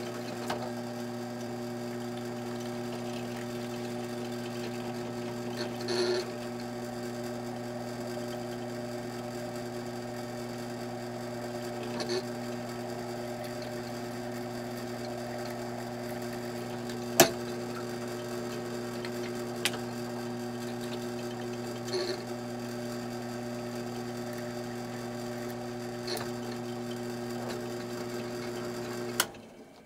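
Benchtop drill press motor running steadily while a 1/16-inch bit drills a hole through a silverware fork clamped in a vise, with a few brief louder cutting sounds and a sharp click about 17 seconds in. The motor shuts off near the end.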